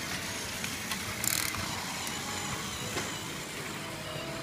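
Battery-powered Plarail toy trains running on plastic track, their small geared motors whirring, with light plastic clicks and a brief high-pitched scrape about a second in.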